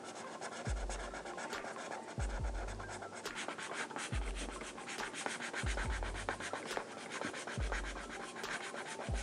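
Felt-tip marker scratching across paper in quick back-and-forth colouring strokes. Soft background music plays under it, with a low bass note every couple of seconds.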